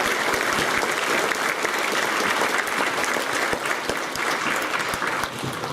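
Audience of schoolchildren and adults clapping, a dense steady applause that thins out near the end.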